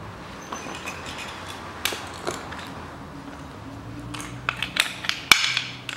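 Light metal clinks and knocks from the steel spare-wheel winch mechanism and a welder's earth clamp being handled on a concrete floor, scattered at first and bunching up near the end with one sharp knock about five seconds in. A faint low hum runs underneath.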